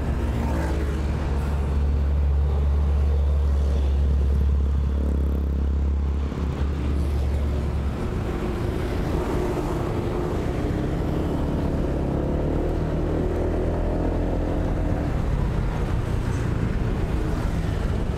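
Motor scooter engine running on the move, with road and wind noise. A heavy, deep rumble fills the first eight seconds or so; after that the engine's note rises and falls as the scooter turns.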